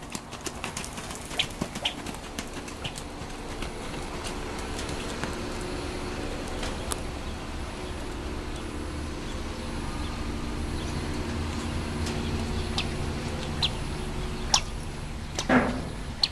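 A Rocky Mountain Horse filly's hooves on arena sand, with short bird chirps now and then over a steady low hum that grows louder toward the end. A short loud noise comes about a second before the end.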